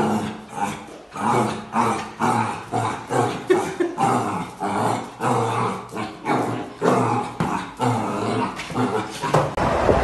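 Black puppy barking and growling at its own reflection in a mirror, a rapid run of short calls about two a second.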